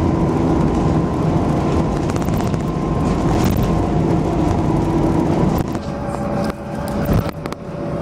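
Steady engine and tyre rumble heard from inside the cabin of a moving road vehicle, with a constant hum; it drops in level for a moment about six seconds in, with a few light clicks.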